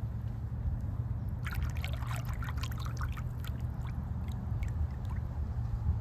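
Shallow creek water trickling and splashing over stones, busiest from about one and a half to three and a half seconds in, over a steady low rumble.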